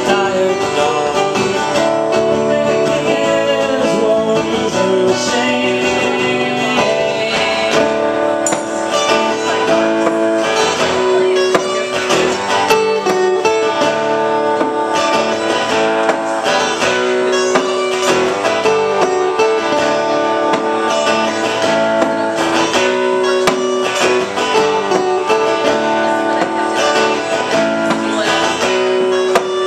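Two acoustic guitars strummed together, playing a song live.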